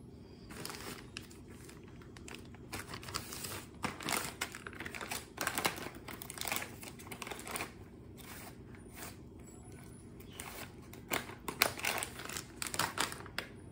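Plastic crinkling and rustling in irregular bursts as a soft wet-wipes packet is handled and wipes are pulled from it, with a quieter stretch about two thirds of the way through.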